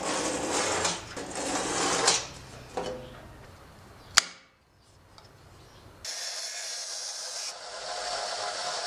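Rough scraping and rubbing of steel on the workbench as a saw-blade blank is handled. About four seconds in there is a single sharp snap. From about six seconds a power tool starts running steadily, giving an even hiss with a faint hum.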